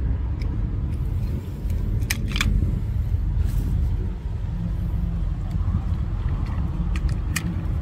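A car engine running with a steady low rumble, with a few short clicks about two seconds in and again near the end.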